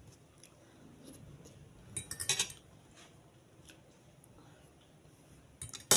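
Metal fork clinking while eating: a quick cluster of sharp clicks about two seconds in and another just before the end, with quiet between.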